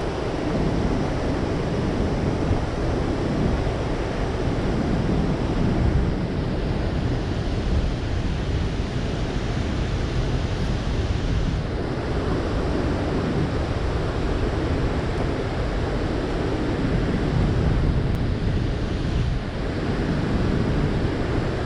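Steady rushing noise of water released through a dam's open spillway gates and churning around a small boat, with wind buffeting the microphone.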